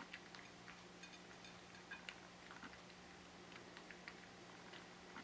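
Cat eating dry kibble from a stainless steel bowl: faint, irregular crunching and small clicks.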